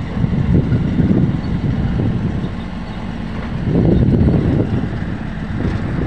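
Mahindra pickup truck driving over a rough, rutted dirt road, heard from its open load bed: a loud low rumble that swells about a second in and again around four seconds.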